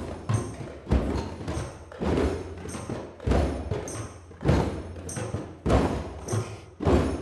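A group of hand drums playing open bass tones in a slow, steady beat, a little under one stroke a second, each deep stroke ringing on, with lighter hits between. This is the 'earth' sound of the drum circle.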